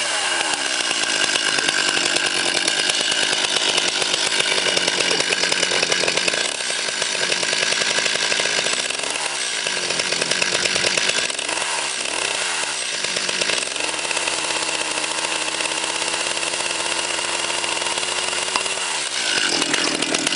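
Two-stroke chainsaw running, its engine revved down and up several times, then held at a steady pitch for a few seconds before revving up sharply near the end.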